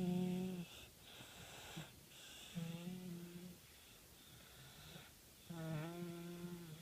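A sleeping baby snoring: three pitched snores about two and a half seconds apart, the last one the longest.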